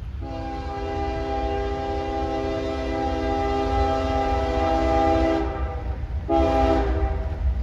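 Freight locomotive's multi-chime air horn: one long blast of about five seconds, then, about a second later, a short blast. A low rumble runs underneath.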